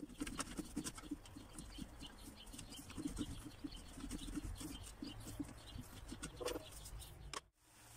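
Cheese being grated on a metal box grater resting on a wooden cutting board: a quick run of short scraping strokes, several a second, that cuts off suddenly near the end.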